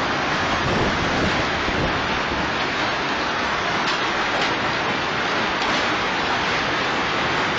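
Hail and heavy rain pelting a street and pavement: a loud, steady hiss of many small impacts, with scattered sharper hits.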